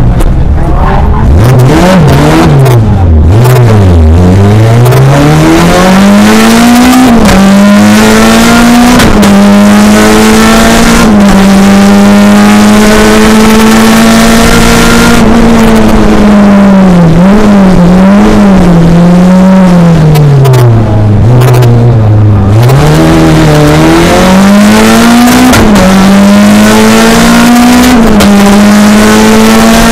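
A race car's engine under hard driving, loud and continuous. Twice the revs fall in steps with short blips, as in downshifting while braking for a corner, then climb again through quick upshifts. In between the engine holds steady at high revs for several seconds.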